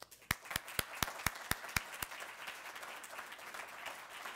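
Audience applauding, with one person clapping close to the microphone: sharp, loud claps about four a second through the first two seconds, then the general applause carries on.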